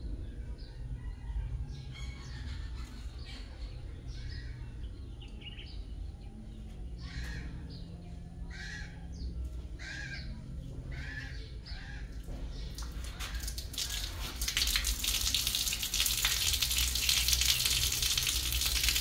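A bird calls several times, short calls about a second apart. Then water starts splashing and pouring about two-thirds of the way in and grows louder.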